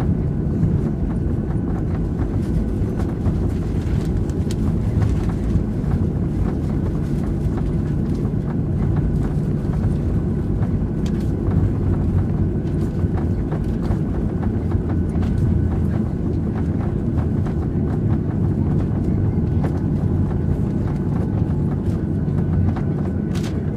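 Cabin noise inside a taxiing Boeing 737-700: a steady low rumble from its CFM56 engines and the rolling landing gear, with a few light knocks and rattles.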